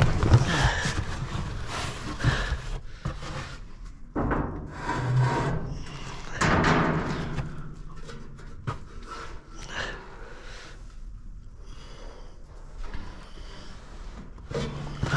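Dumpster contents being rummaged and shifted by hand: packaged goods and a cardboard box rubbing, scraping and knocking in irregular bursts, busiest in the first half.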